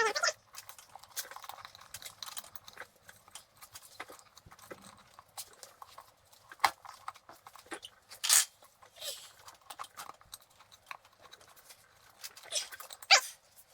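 Scattered small clicks, knocks and scrapes of a snowblower tire and metal tire-changer parts (spacers, disc, cap) being handled and refitted, with a sharper clack about eight seconds in and a cluster of knocks near the end.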